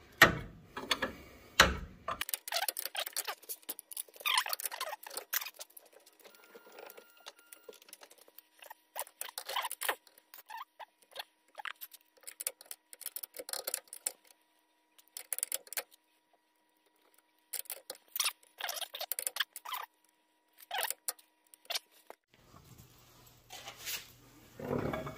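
Hand ratchet wrench clicking in quick bursts with short pauses, as a nut on the front suspension is tightened.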